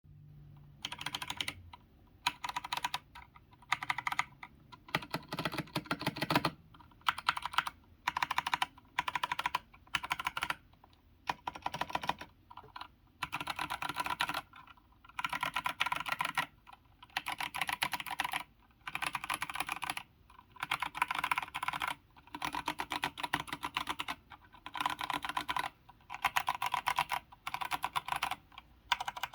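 Typing on a mechanical keyboard with Kailh Box Brown tactile switches, an aluminium plate and a solid walnut case, in bursts of rapid, forceful keystrokes broken by short pauses. The clacks are loud, which the typist puts down to heavy typing and the undampened wooden case.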